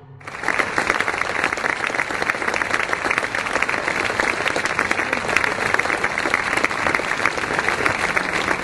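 Large concert audience applauding: dense, steady clapping that starts a moment in and keeps up evenly.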